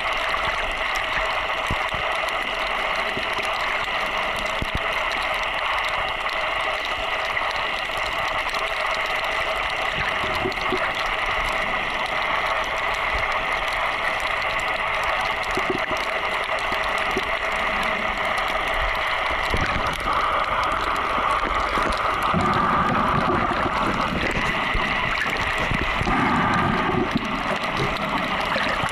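Underwater sound from a submerged camera: a steady, muffled water hiss with a constant hum of several tones running through it. In the last third, louder sloshing and bubbling joins in as the camera rises toward the surface.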